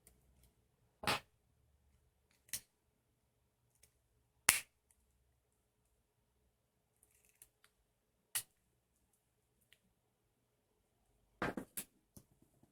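Sharp plastic clicks and snaps from a VW remote key fob being handled: single clicks a second or more apart, then a quick cluster of three or four near the end.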